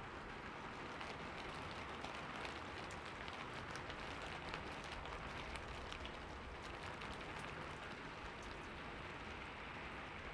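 Steady rainfall, an even hiss with many small drop ticks landing on a surface.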